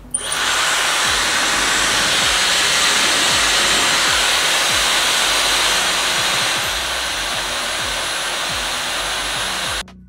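Dyson Supersonic hair dryer switched on and running, a steady loud rush of blown air. A little past two-thirds through it gets slightly quieter and a thin high whine comes in, and it cuts off just before the end.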